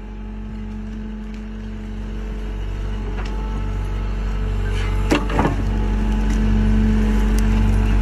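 Small SDLG crawler excavator's diesel engine running hard under load, growing steadily louder as the machine drags itself up a muddy bank on its bucket. There are a couple of sharp clunks a little after five seconds in.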